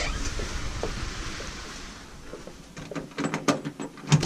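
A door's lock and latch being worked as the door is opened: a soft hiss fading over the first two seconds, then a quick run of clicks and knocks near the end.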